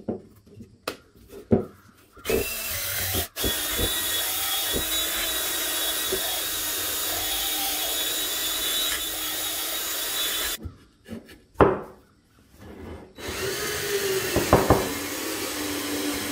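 Cordless drill spinning a rod inside an airgun's metal tube, with a steady scraping whir as it works the inner wall. It runs for about eight seconds, stops with a few knocks as the tube is handled, then starts again about 13 seconds in.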